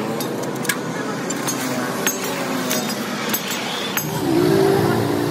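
Scattered light metallic clinks and taps over a steady noisy background, with a brief louder pitched sound near the end.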